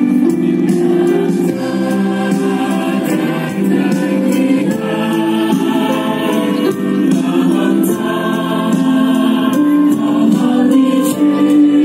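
Teenage choir singing a song together, held notes changing pitch every second or so without a pause.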